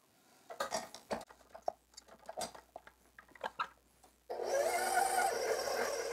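Short clicks and knocks as the steel bowl is handled on a stand mixer. About four seconds in, the mixer's motor starts suddenly and runs steadily, kneading bread dough with the dough hook at medium-low speed.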